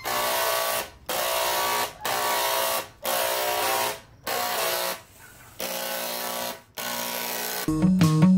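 Handheld Harbor Freight electric paint spray gun running in about six short trigger pulls of just under a second each, with brief breaks between. Guitar music comes in near the end.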